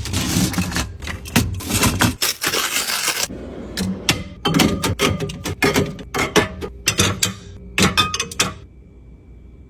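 Drink cans and bottles clinking and knocking against each other and the shelves as a drinks fridge is restocked, in quick irregular clatters that stop near the end.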